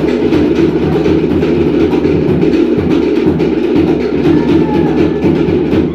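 Live Cook Islands band music with fast, even percussion and a strong low beat.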